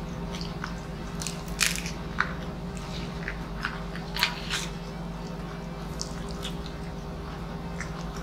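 Close-up biting and chewing of crispy pata, deep-fried pork leg, with sharp crunches of the crackling skin. The loudest crunches come about a second and a half in and again about four seconds in, over a steady low hum.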